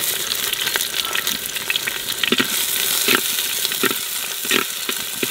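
Sliced onions sizzling in hot oil with whole cumin, bay leaf and garam masala spices in a clay pot. The onions are being stirred, with several short scrapes against the pot over the steady frying hiss.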